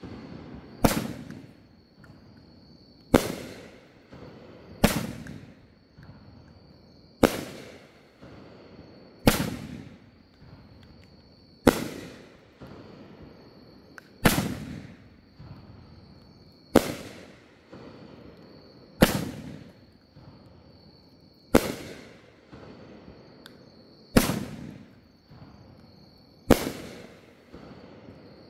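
A 500-gram consumer aerial firework cake (Cutting Edge Fireworks 'Honor') firing shells that burst one after another. Each is a loud sharp bang every two to two and a half seconds, about twelve in all, and each trails off in an echoing rumble.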